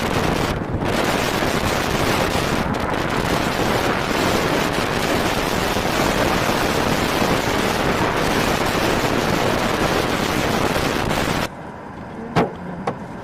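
Loud, steady rush of storm wind buffeting the microphone, cutting off abruptly about eleven seconds in; a few sharp knocks follow near the end.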